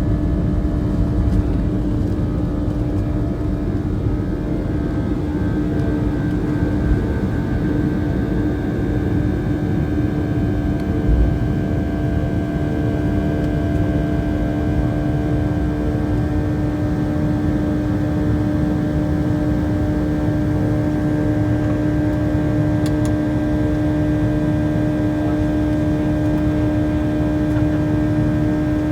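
Boeing 737-800 cabin noise heard from the front row: its CFM56 jet engines and airflow run steadily, with a constant low hum over a rumble.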